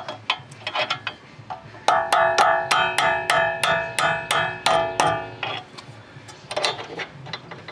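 Lump hammer striking a punch against a rust-seized suspension arm bolt, driving it out through the bush: ringing metal blows, lighter at first, then a loud fast run of about five a second for some three seconds, and a few more near the end.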